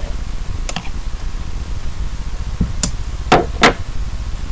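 Several sharp knocks and taps as hat-making materials are handled and set down on a work surface, the last two close together and loudest, over a steady low hum.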